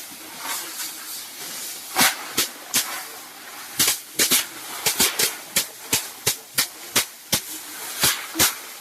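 A run of sharp, crisp strikes or snaps, irregular, about two a second and coming faster after the first few seconds, over a steady hiss.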